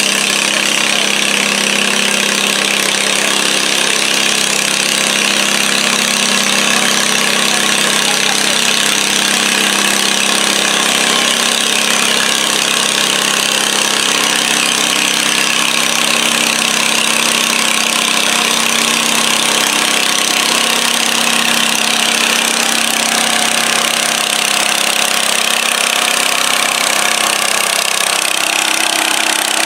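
International Harvester Cub Cadet garden tractor's engine running steadily under load as it pulls a weighted stoneboat sled.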